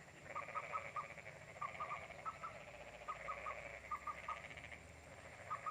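Night chorus of frogs and insects: short piping notes in quick groups of two to four, about one group a second, over a steady chirring background.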